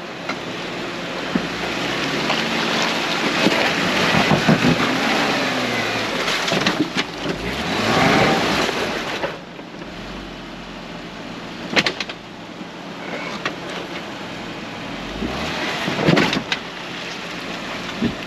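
Jeep engine revving up and down in swells as the Jeep crawls over rocks, roots and logs, with two sharp knocks later on.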